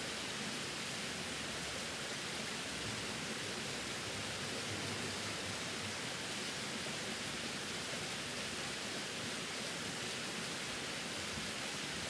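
Small waterfall running steadily down a rock face: a constant, even rush of falling water, brightest in the high range, with no single splashes standing out.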